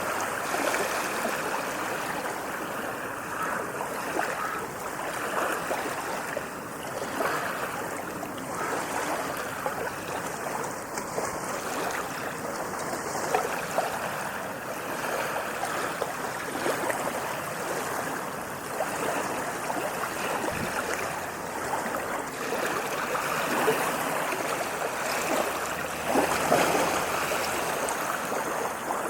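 Small sea waves washing over beach sand: a steady wash of water with small splashes and gentle swells in level, no large breaking surges.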